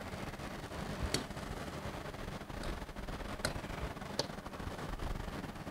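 A few light, sharp taps at a chalkboard, four spread over several seconds, over a faint steady hiss of room noise.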